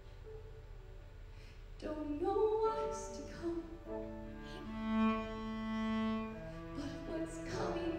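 Live piano and cello playing a slow passage. Soft held notes at first, then about two seconds in the cello comes in louder with a rising slide and sustains long bowed notes.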